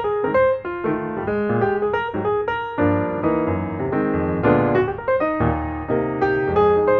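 Background piano music: a quick melody of single notes over chords, fuller lower chords coming in about three seconds in.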